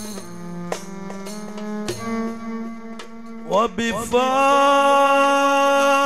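Egyptian Sufi religious music for a dhikr: melodic instruments with a few drum or tambourine strikes, then a long note that slides up about three and a half seconds in and is held steadily.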